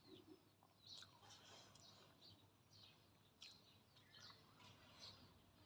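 Faint birds chirping: short, high calls repeating irregularly every half second or so, with a few soft clicks.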